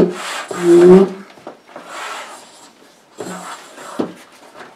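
Hand pump inflating an inflatable kayak, with strokes of air rushing through it. The two loudest strokes, in the first second, carry a low squeaky honk; later strokes are fainter and slower, with a click near the end.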